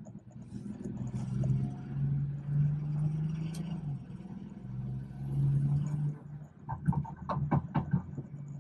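BMW 440i's B58 turbocharged inline-six, tuned to about 500 wheel horsepower, droning steadily under way, heard from inside the car. Its pitch rises a little partway through, and a quick cluster of sharp sounds comes near the end.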